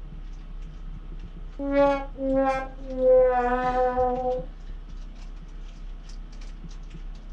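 Sad-trombone "wah-wah-waah": three held brass notes, each a little lower than the last, the final one the longest, marking a failure. Here it marks the RV air conditioner not coming on.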